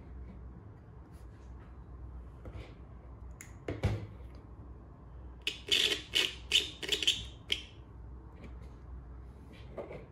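Jumper wires being handled and plugged into a breadboard circuit: a couple of clicks about four seconds in, then a cluster of short scratchy rustles and clicks from about five and a half to seven and a half seconds, over a faint low hum.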